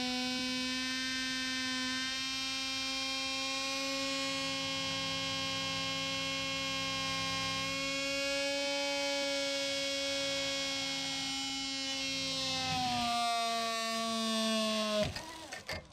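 Brushless drone motor on a test stand spinning a propeller with a 3D-printed guard ring, giving a steady whine with many overtones. The pitch lifts slightly about halfway, then sinks over the last few seconds and drops away sharply near the end as the motor spins down. Problems can be heard the whole way through; the tester suspects vibration from a loose, poorly balanced ring.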